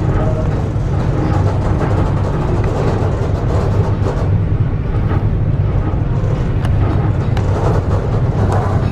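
Passenger train running, heard from on board: a steady low rumble with a few sharp clicks in the second half.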